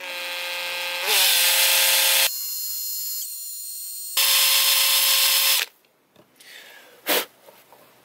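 Cordless drill running forward with a pointed wood bit, boring into the plastic button of a side-release buckle: a steady motor whine with the grind of the cut. It eases to a fainter whine for about two seconds in the middle, runs hard again, then stops a little before six seconds in. A single sharp click follows about a second later.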